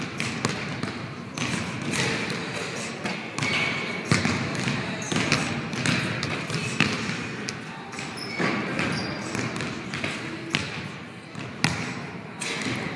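Basketballs bouncing on a hardwood gym floor: irregular, overlapping thuds from several balls at once, echoing in the large hall, with a few short high squeaks.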